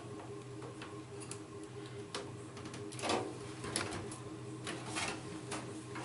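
Scattered small clicks and taps as a RAM module is pressed into a desktop motherboard's memory slot, the loudest about three seconds in, followed by a few lighter ones.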